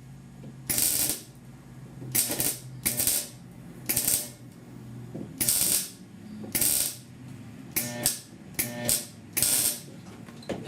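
Electric welding arc striking in about ten short crackling bursts, a quick run of them near the end, as tack welds go onto a thin steel patch panel. The welder is set too cold: the tacks blob up on top of the metal without penetrating. A low steady hum runs underneath.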